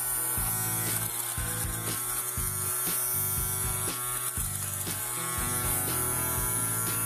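Electric lint remover (fabric shaver) buzzing steadily as its rotating blades shave pills off a jacket's fabric.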